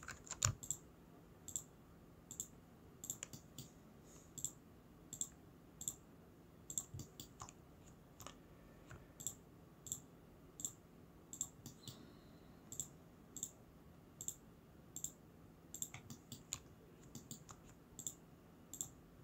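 Faint computer mouse clicks, coming irregularly about once or twice a second, over a faint steady hum.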